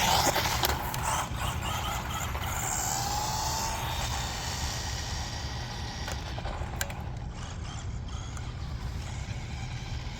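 A JJRC Rigid C8805 1/14-scale RC desert truck driving on wet ground, its brushed electric motor whining, with a short rising whine about two seconds in.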